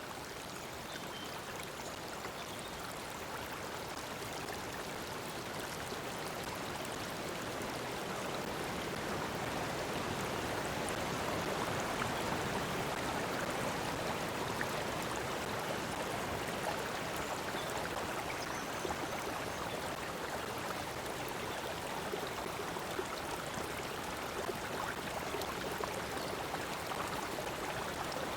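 Flowing water running steadily in an even rushing babble, growing slightly louder over the first dozen seconds and then holding steady.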